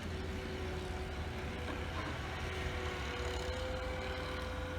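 Snow plow truck's engine running with a steady low drone and a thin whine that rises slightly partway through, then holds.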